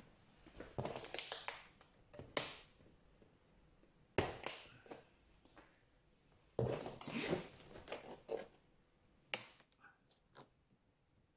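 Plastic strapping and packing tape on a large cardboard box being cut and pulled loose: irregular crackling, scraping handling sounds with a few sharp snaps.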